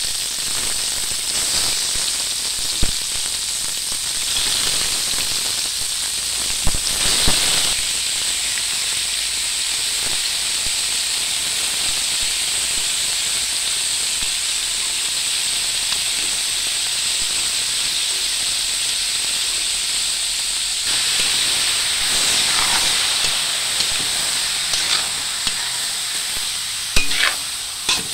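Diced raw pork frying in a hot steel wok with garlic, onion and ginger: a steady sizzle. A few sharp knocks break through, several of them close together near the end.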